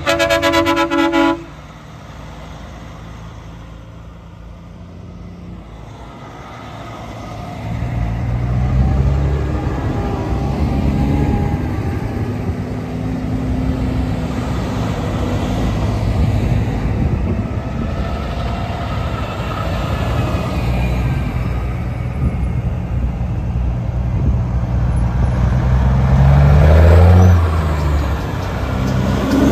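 A truck's air horn blasts and cuts off suddenly about a second and a half in. Diesel engines of passing semi-trailer trucks then build up, and one revs up loudest near the end.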